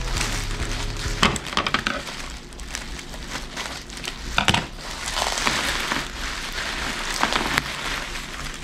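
Plastic bubble-wrap packaging crinkling and rustling as it is pulled and torn open by hand, with sharper crackles about a second in and again about halfway through.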